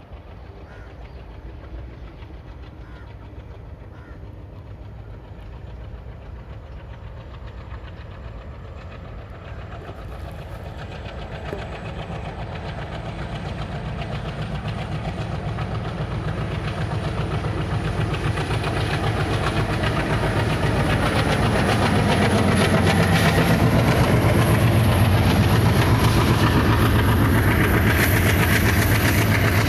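Indian Railways diesel locomotive hauling a passenger express, approaching and growing steadily louder over about twenty seconds. The locomotive's engine and the coaches' wheels on the rails then stay loud as the train passes close by.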